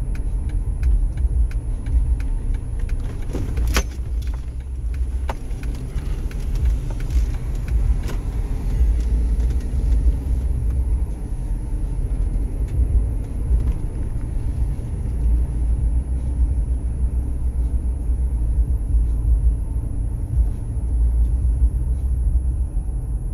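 Low, steady rumble of a car's engine and tyres heard from inside the cabin while driving, with light ticking through the first ten seconds or so and one sharper click about four seconds in.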